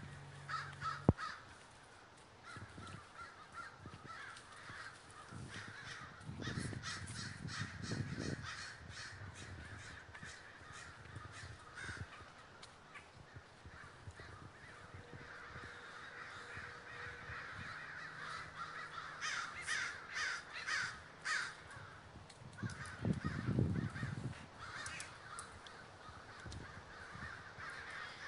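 A large flock of American crows cawing, many birds calling over one another at once, with louder clusters of caws now and then. A sharp click sounds about a second in, and low rumbles of handling noise come and go.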